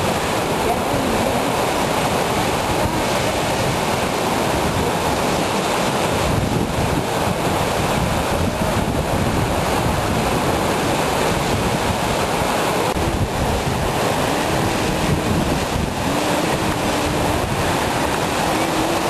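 Heavy sea surf breaking and churning around rocks: a steady, loud rush of white water with no break.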